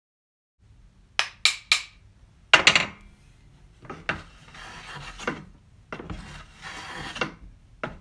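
Three sharp knocks of wood on wood and a short clatter, followed by slow rasping strokes of a hand tool working wood, each about a second long.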